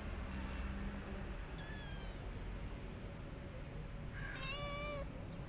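Cat meowing twice: a short, high-pitched mew about a second and a half in, then a longer, lower meow about four and a half seconds in.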